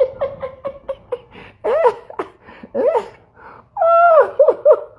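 A man laughing in a series of short, high-pitched bursts with gaps between them, the longest run near the end.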